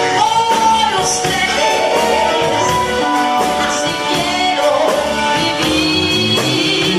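Live band music with a woman singing into a microphone, backed by electric guitar and drums.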